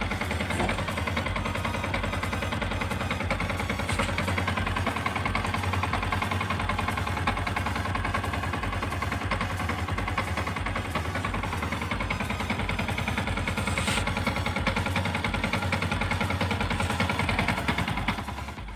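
Yamaha Sniper Fi 150's single-cylinder, fuel-injected four-stroke engine idling steadily with the new spark plug fitted, dying away at the end.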